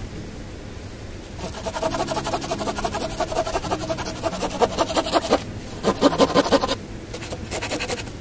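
Folding hand saw cutting through a log with rapid back-and-forth rasping strokes, starting about a second and a half in, with a short pause a little after five seconds, then more strokes that fade toward the end.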